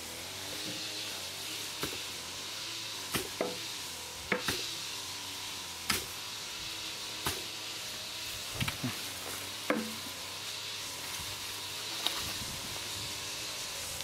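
Shovel digging into soil, about ten irregular chops and scrapes over a steady hiss.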